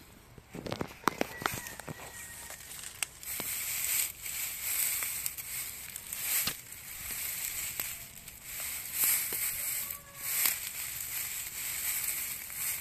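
Dry grass rustling and crackling as a hand parts and pushes through it, with scattered short clicks and snaps. A high hiss swells and fades behind it.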